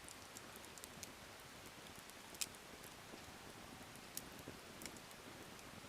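Wood fire burning quietly, with scattered sharp crackles and pops from the logs, one louder snap about two and a half seconds in, over a faint hiss.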